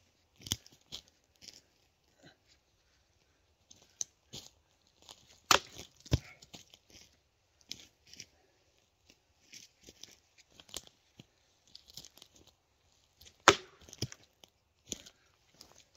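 A machete blade striking wood: a few sharp, separate whacks several seconds apart, the loudest about five and a half and thirteen and a half seconds in, with faint scraping and rustling between them.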